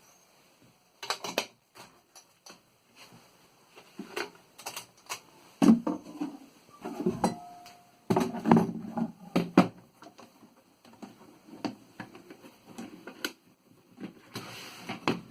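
1955 Optima Elite 3 portable mechanical typewriter clicking and clunking irregularly as it is worked, with a few heavier knocks around the middle.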